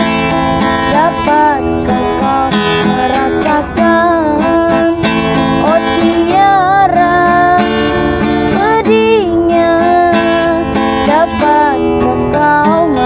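A woman singing a slow ballad with wavering held notes over a strummed acoustic guitar.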